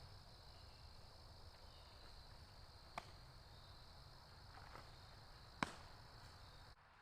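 Near silence: a faint steady high-pitched whine, with two short sharp clicks, one about three seconds in and one near the end.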